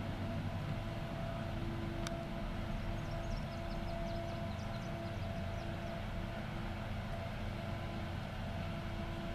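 Distant diesel engine of a Cat 573C wheeled feller buncher running steadily, a constant whine held over the low engine rumble.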